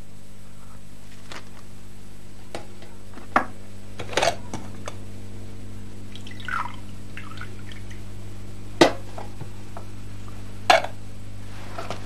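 Water poured from a vacuum flask into a cup, with several sharp clinks and knocks of the flask and cup. A steady low hum runs underneath.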